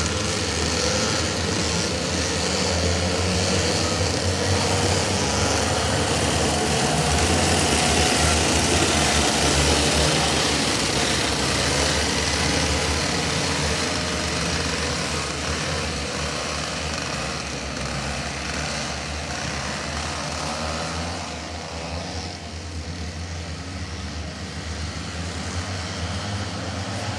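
Engines of a pack of racing karts buzzing together as they race around the circuit. The sound swells to its loudest about ten seconds in, then fades in the second half as the pack moves away.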